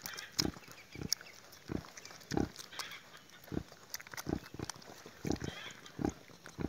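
Nursing sow giving short, low grunts in a steady rhythm, about one to two a second, while her 21-day-old piglets suckle as the milk lets down.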